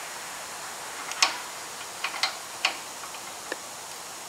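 Light metallic clicks, about five of them irregularly spaced, as a stainless Allen-head bolt is started by hand through a piano-style hood hinge.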